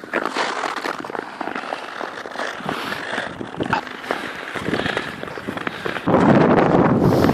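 Long-blade Norwegian skates (noren) scraping and crackling over rough, snow-dusted natural ice, with irregular sharp ticks stroke after stroke. About six seconds in, a louder steady rush of noise takes over.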